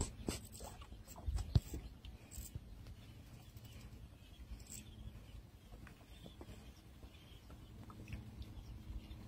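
Quiet open-air riverbank ambience with faint scattered clicks and a soft knock about one and a half seconds in.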